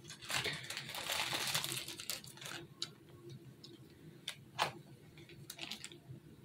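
Handling noise from filling a piping bag: about two seconds of plastic rustling and scraping, then several light, sharp clicks and taps spread through the rest.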